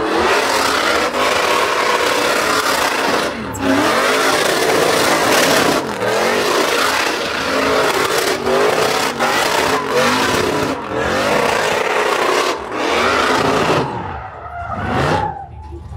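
Pickup truck doing a burnout: tyres spinning and screeching on the pavement under a hard-revving engine, the revs rising and falling with brief lifts of the throttle every few seconds. Near the end the tyre noise drops away and the engine revs up once more.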